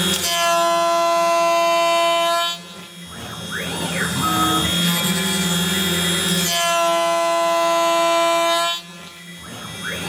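CNC router running through a repeating cutting cycle: a steady whine for about two and a half seconds, then a sudden drop with a brief sweeping whir, then the whine again for about two seconds before it drops once more near the end.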